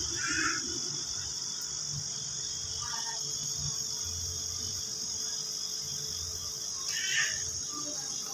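Refrigerator compressor running on its new start relay and start capacitor, a faint low hum, under a steady high shrill trill of crickets, with a few short chirps near the start and about seven seconds in.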